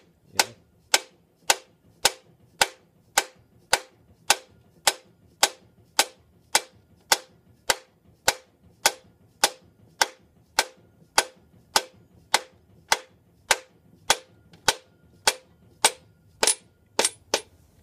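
Mallet striking a steel driver on a cylinder sleeve, a steady run of sharp knocks at about two a second, the last few coming quicker near the end. The blows drive a dry-ice-chilled sleeve down into the heated bore of a Toyota 2.2 L L-series diesel block.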